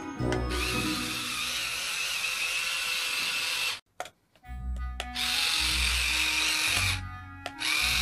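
Small electric motor of a remote-control toy tarantula whirring as it walks, in stretches: it stops briefly about four seconds in, then starts and stops again twice. Background music with a steady bass beat plays underneath.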